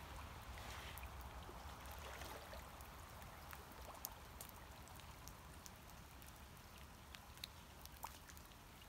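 Faint trickling and lapping of lake water as a person eases slowly into it, with a few sharp drips about four seconds in and twice near the end.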